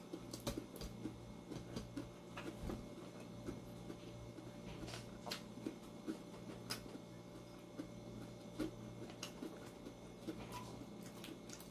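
Quiet eating sounds: scattered soft clicks and taps of fingers picking at fried fish and rice on a plate, with chewing, over a steady low hum.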